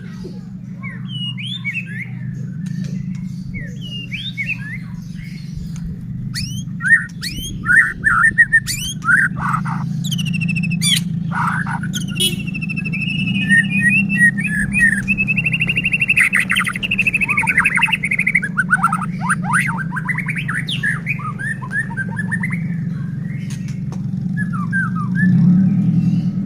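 White-rumped shama singing: varied whistled phrases, a run of sharp clicking notes about seven to eleven seconds in, and a long rapid trill in the middle. A steady low hum runs underneath.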